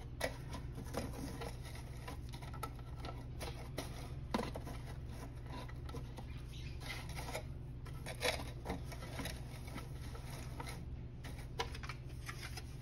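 Light rustling and scattered soft plastic taps and clicks as foam filter pads are handled and pressed into the black plastic tray of a Tetra pond submersible flat box filter, over a steady low hum.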